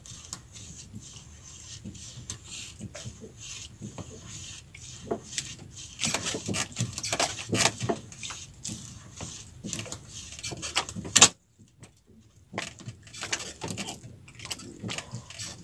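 Rattling, tapping and rustling of a fishing handline being hauled in by hand over the side of a small boat. A sharp knock comes about eleven seconds in, then the sound cuts out for about a second before the clatter resumes.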